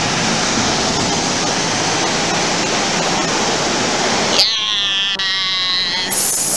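Loud, steady rushing of blown air at a store entrance. About four and a half seconds in it gives way to a hollow whooshing with a slightly falling whine.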